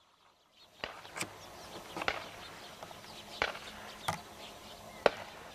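Open-country ambience with small birds chirping and six sharp cracks at irregular intervals, the last one, near the end, the loudest.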